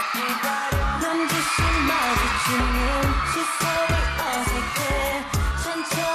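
K-pop dance track playing, with a heavy bass beat, rapid hi-hat ticks and some singing.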